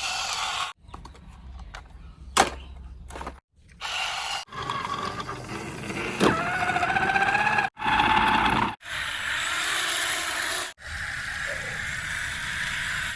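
Mechanical running sounds in several short segments, each cut off abruptly, with a sharp click a couple of seconds in and a rising whine about six seconds in.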